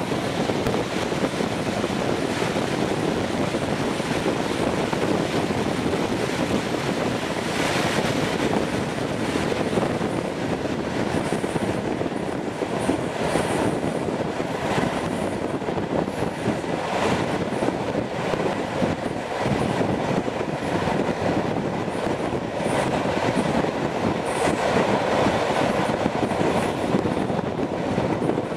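Diesel-hauled passenger train running along the track, heard from an open coach window: a steady rumble of wheels on rails mixed with rushing air, with a sharp clack now and then and a few faint high squeals from the wheels on the curve.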